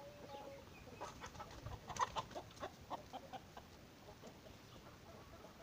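Chickens clucking: a quick run of short clucks starting about a second in, busiest around the middle, then tailing off.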